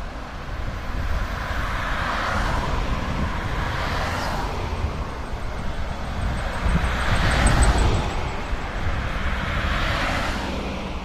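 Road traffic passing close by on a wet road: tyre hiss and engine noise swell and fade about four times as cars go past, loudest about seven seconds in, over a steady low rumble.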